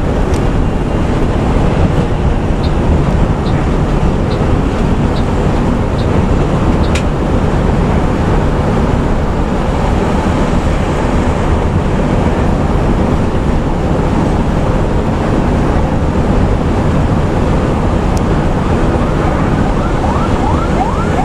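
Steady engine and road noise inside a bus cab at highway speed. A turn signal ticks about once a second from about two to six seconds in, as the bus overtakes. Near the end an ambulance siren joins in, sounding in quick, repeated rising sweeps.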